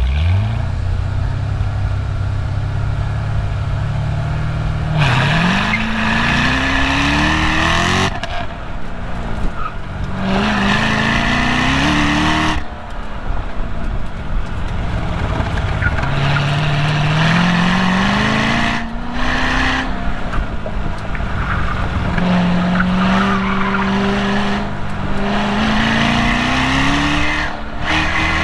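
Chevrolet Corvette Z06's LS7 V8 launching from the start and then revving up and falling back again and again as it accelerates and brakes between cones, picked up at the rear license plate. Tires squeal at the limit of grip through the turns.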